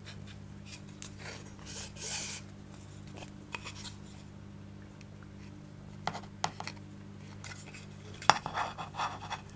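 Paracord being threaded through the eyeleted holes of small wooden plaques: scattered light clicks and taps as the boards and metal eyelets are handled, and a brief rub of cord pulled through about two seconds in, with a sharper knock near the end. A faint steady low hum lies underneath.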